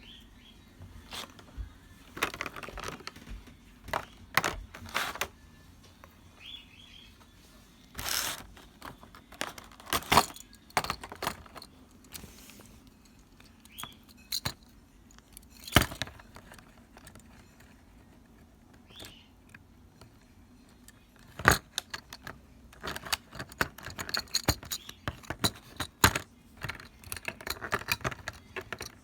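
Plastic toy playset pieces being handled: irregular clicks, taps and short rattles, with a few sharper knocks scattered through.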